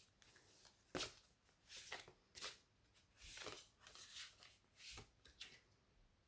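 Tarot cards being shuffled and handled, with soft slides and rustles broken by a few sharp snaps of card edges.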